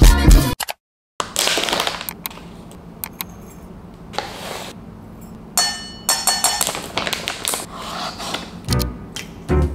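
Music cuts off about half a second in, giving way to light household handling sounds: scattered knocks, clicks and scrapes, a brief hiss, and a ringing clink around the middle, over a low steady hum.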